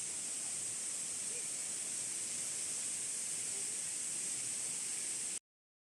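Steady rushing water at a waterfall, heard as an even hiss with a strong high edge to it; it cuts off abruptly about five seconds in.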